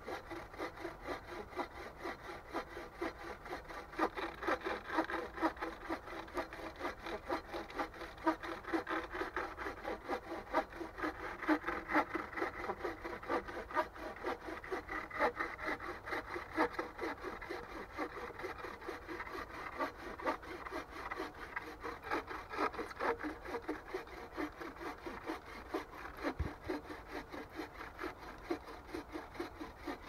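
Home-made bow saw cutting through a log on a sawbuck: a steady, even rhythm of back-and-forth strokes of the blade through the wood.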